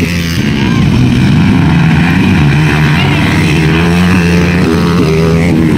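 Dirt bike engines running hard and revving as motocross bikes race along a grass track.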